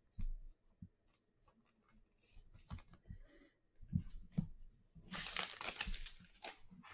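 Trading cards tapped and shuffled on a tabletop in a few soft clicks, then from about five seconds in the crackle of a foil trading-card pack wrapper being handled.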